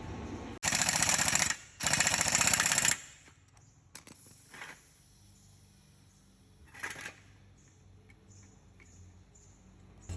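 Impact wrench run in two bursts of about a second each, a rapid rattling hammer, followed by a few light tool clicks.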